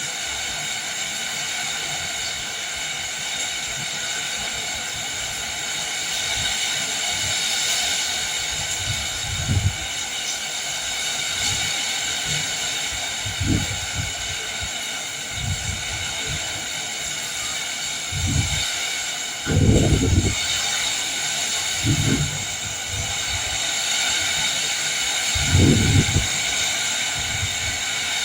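Rain falling steadily in a windy storm, a constant hiss. From about a third of the way in come about six short, low rumbles, the strongest near the end.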